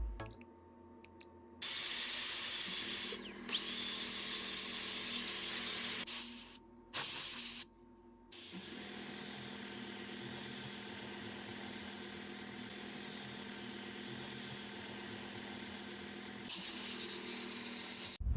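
Dental drill with water spray, a high-pitched whine over a hiss that dips briefly about three seconds in, then short bursts and a quieter steady hiss.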